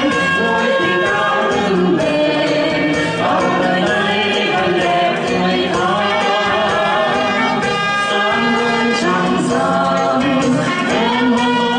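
A group of men and women singing together into microphones over amplified backing music, at a steady, full level.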